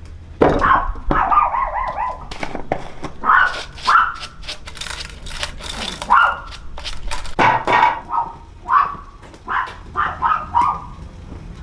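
A dog barking repeatedly in short, sharp barks and yips, with a few knocks in between.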